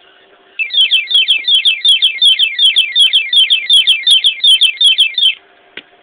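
Master Lock cable lock's built-in alarm going off when the armed lock is tampered with: a very loud electronic siren of rapid falling chirps, about five a second, starting about half a second in and cutting off after roughly five seconds. A single click follows shortly after it stops.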